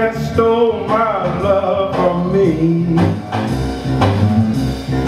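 Music for a burlesque dance routine: a jazzy, bluesy number with a walking bass line and a sliding melody line over it.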